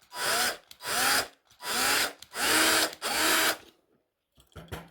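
Power drill drilling out a rivet in a diecast toy car's base with a larger bit, run in about five short trigger pulses, its pitch rising at the start of each. It stops about three and a half seconds in, followed by a few small clicks.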